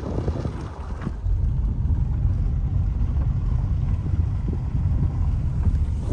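A car driving along, with a steady low rumble of road and engine noise that settles in about a second in.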